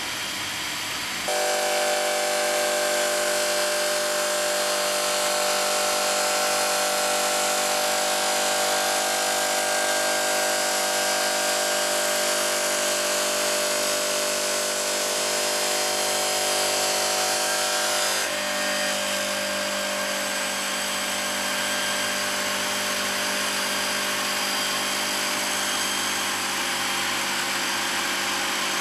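HLSQ-450 automatic bridge saw cutting a granite slab with its water-cooled blade: a loud, steady machine whine made of many steady tones. It steps up about a second in and shifts to a lower, rougher tone about eighteen seconds in.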